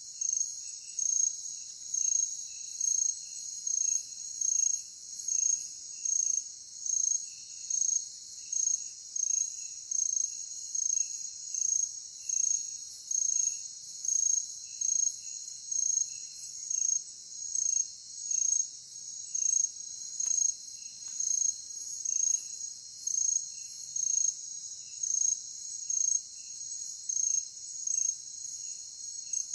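Chorus of night insects: a steady high buzz with a louder chirp repeating about once a second, and fainter lower chirps between.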